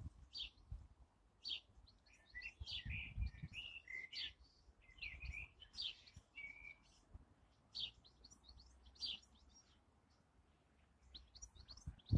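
Small birds chirping, short high calls repeating throughout, with a warbling song in the middle. A few low rumbles on the microphone.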